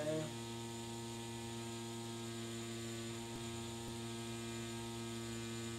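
Tattoo machine with a seven-round liner needle running with a steady, pitched electric buzz while it lines.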